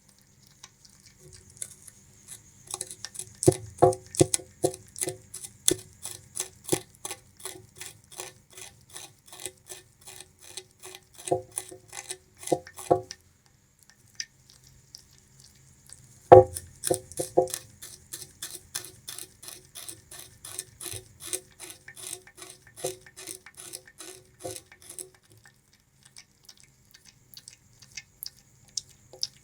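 Bamboo rat gnawing and chewing sugarcane: rapid crisp crunching bites, several a second, with a few heavier crunches among them and short pauses about halfway through and near the end.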